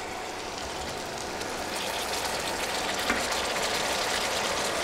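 About a litre of room-temperature water poured from a jug into a hot pan of fried mung dal and rui fish heads. It makes a steady rush that grows slightly louder as the pan fills. This is the water added to boil the dal once the frying stage is done.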